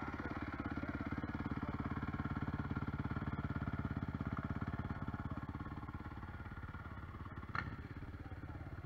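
Single-cylinder dirt bike engine idling steadily, with a short high chirp about three-quarters of the way through.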